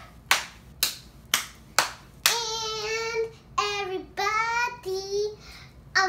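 A young girl claps her hands four times, about two claps a second, then sings a few drawn-out notes.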